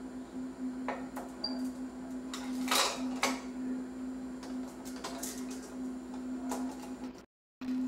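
Petri dishes being picked up and set down on an aluminium-foil-covered bench: a few light clicks and short foil rustles over a steady low hum.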